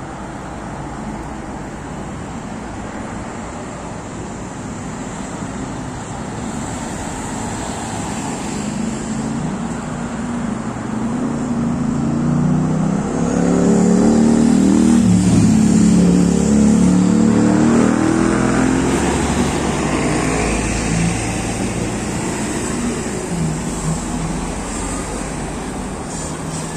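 Steady road traffic, rising to its loudest about halfway through as a city bus drives past close by with its engine running, then easing off as cars go by.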